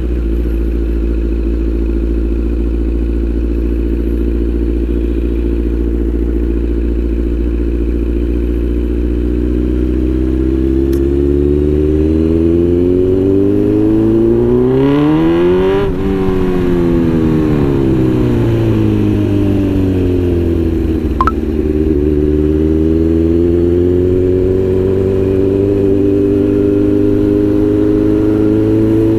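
Kawasaki Z900's inline-four engine under way: running at a steady cruise, then revs climbing to a peak about two-thirds of the way through and falling away again. One click comes near the fall, and after it the revs build slowly once more.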